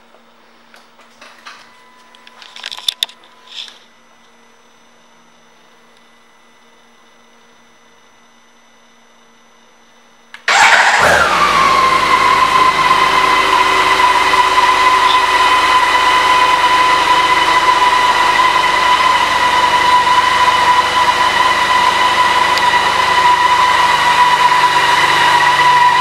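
A few clicks from the key fob and switches, then about ten seconds in the BMW K1600 GTL's inline-six engine starts, its revs dropping quickly and settling into a steady idle.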